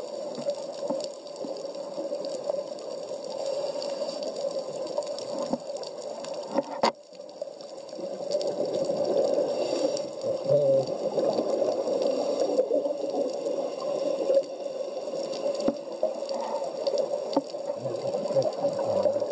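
Underwater noise picked up by a camera in its waterproof housing: a steady rushing, bubbling water sound. A sharp click and a brief drop in loudness come about seven seconds in.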